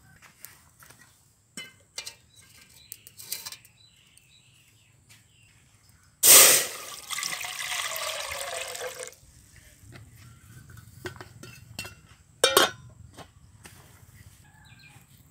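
Water poured from a plastic container into an aluminium cooking pot for about three seconds, starting with a loud splash. A few seconds later comes one sharp metal clank of the aluminium lid going onto the pot, with a few light knocks earlier on.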